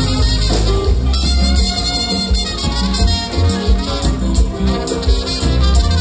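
Haitian kompa band playing live: a heavy bass line and drums under brass, guitar and keyboards.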